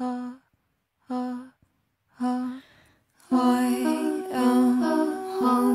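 Wordless vocal music: three short hummed notes on the same pitch, about a second apart, then from about three seconds in a layered, held chord of several voices.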